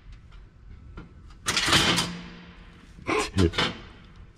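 Cordless drill running briefly to spin loose the nut of a turbo downpipe's V-band clamp: one longer burst about a second and a half in, then a few short bursts near the end.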